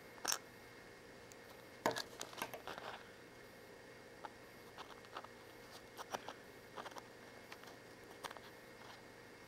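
Faint scattered clicks and taps of metal tweezers and an aluminium spacer against the glass solder-collection chamber of a Hakko FR-300 desoldering tool as the spacer and filter are fitted back in. The loudest click comes about two seconds in.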